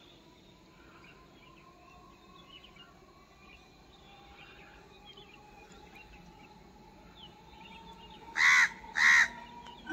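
Two loud crow caws close together near the end, over a quiet outdoor background of faint bird chirps. Underneath runs a faint steady whine from the electric local train approaching through the fog.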